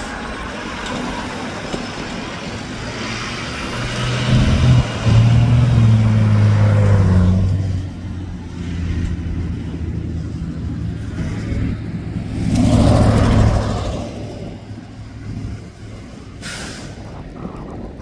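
Mack front-loader garbage truck's diesel engine running as it drives off, loudest with a steady low drone from about 4 to 7 seconds in and surging again around 13 seconds. A short sharp hiss of air near the end.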